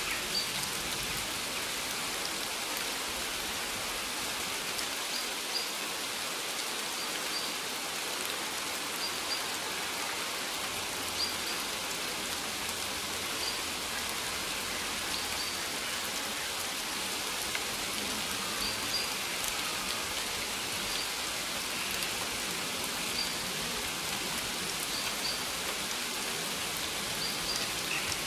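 Steady rain falling on maize leaves: an even hiss with scattered small drop taps.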